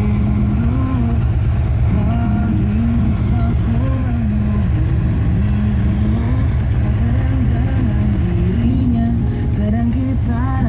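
Harley-Davidson Road Glide Ultra's V-twin engine running with a steady low pulsing, and a wavering tone rising and falling over it in arcs of about a second.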